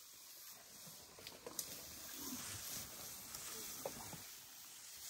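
African elephants browsing on a thorny bush close by: leaves rustling and twigs snapping, with a sharp crack about a second and a half in and another near four seconds in.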